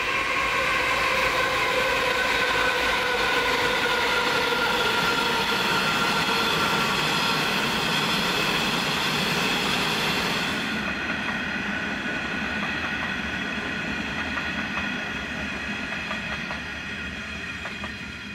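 Empty coal train passing on the grade: the last of its diesel-electric locomotives goes by at the start, then the empty coal hopper wagons roll past with steady wheel-on-rail rumble and clatter under several steady high whining tones. The sound turns duller about halfway through and fades near the end as the train draws away.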